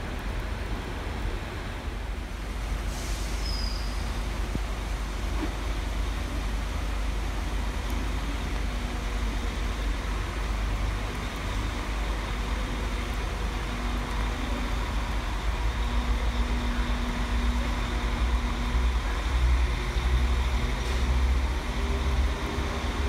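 A Northern CAF Civity multiple unit runs slowly past: a steady low rumble with a hum that grows louder over the second half. A brief high squeak comes about three seconds in.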